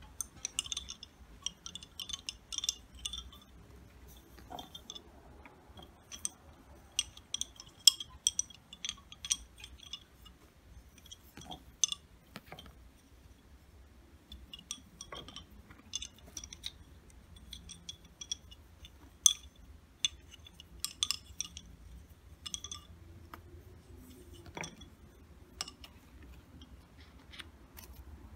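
Turned wooden lace bobbins clicking and clacking against each other in quick irregular clusters as they are crossed and twisted in bobbin lace making, with a few louder single knocks.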